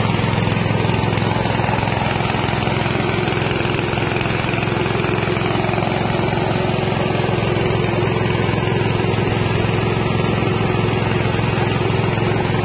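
Carlton rice milling machine running steadily on its small engine while it mills paddy into white rice.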